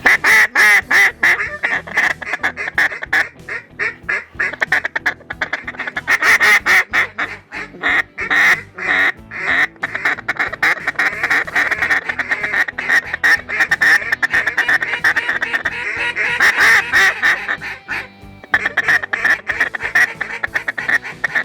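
Loud duck quacking and fast chatter, a near-continuous string of rapid quacks with a brief lull about eighteen seconds in.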